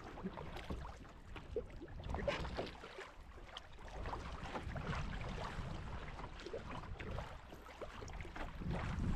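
Canoe paddle strokes on a lake: the blade dipping and pulling through the water, with small splashes and drips from the paddle.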